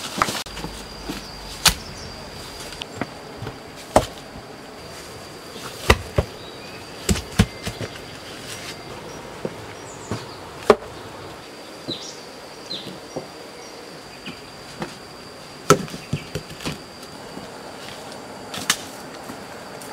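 Scattered sharp knocks and thuds of heavy stones being picked up, carried and set down, with footsteps on rock and dry leaf litter. Under them runs a steady high insect buzz.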